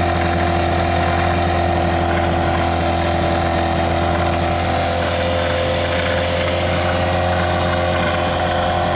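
Hangkai 12 hp 169 cc two-stroke outboard motor running steadily at a constant speed, lower unit in a test tank of water, during its first break-in run.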